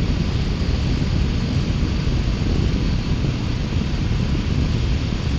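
2018 Triumph Bonneville T120's parallel-twin engine running at a steady cruise, heard from the rider's seat with strong wind rush over the microphone.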